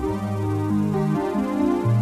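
Synthesizer keyboard playing an instrumental passage: sustained chords over a low bass note that moves to a new pitch about once a second.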